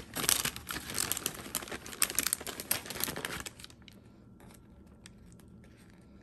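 Paper sandwich wrapper crinkling and rustling as it is pulled open from around a sub sandwich, for about three and a half seconds. Then it goes much quieter, with only a few faint clicks.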